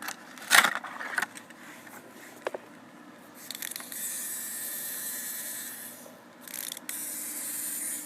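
A few handling clicks, then a Tomy Pop Overs wind-up gorilla's clockwork mechanism whirring steadily for about two and a half seconds. It stops briefly and whirs again for about a second near the end.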